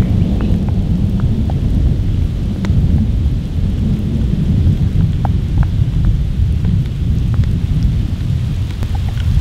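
A steady low rumble of thunder under light rain, with scattered drips and drops ticking throughout.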